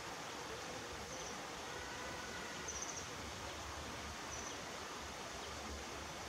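Outdoor ambience: a steady hiss with faint, short, high-pitched chirps repeating about every one and a half seconds.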